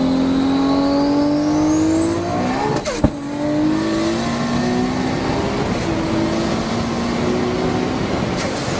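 Turbocharged Toyota Supra with a Precision 7685 turbo at 40+ psi boost, heard from inside the cabin on a full-throttle pull. The engine note climbs steadily with a high whine rising alongside. It breaks sharply with a click at an upshift about three seconds in, and again near six seconds, then climbs once more.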